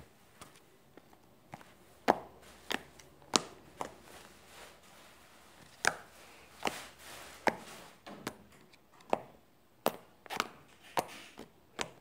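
Slime clicking as it is squeezed and folded in the hands: about twenty sharp clicks at irregular intervals.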